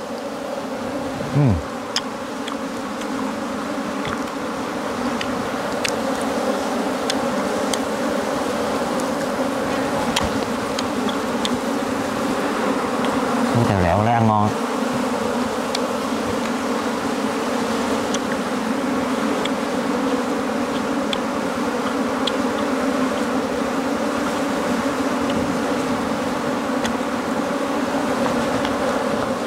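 A swarm of wild honeybees buzzing steadily around their opened nest as the comb is pulled out by hand, the colony disturbed. About fourteen seconds in, one buzz swoops down and back up in pitch as a bee passes close.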